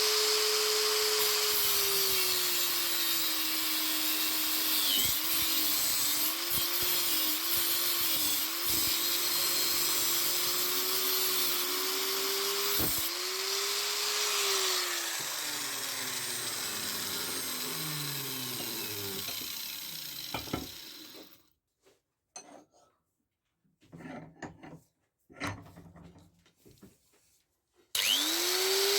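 Handheld electric power tool running under load, its motor pitch dipping briefly several times as it bites. Around two-thirds through it winds down with a falling whine and stops. After a few scattered knocks, it starts up again with a rising whine near the end.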